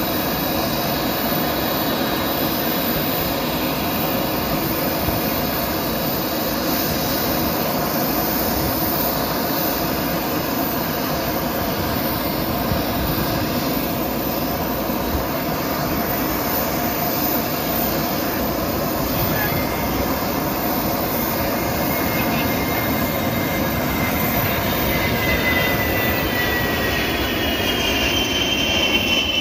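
F-35 Lightning II jets' Pratt & Whitney F135 turbofan engines running at ground idle: a loud, steady jet roar with a constant whine. In the last several seconds a fainter whistle sliding in pitch joins in.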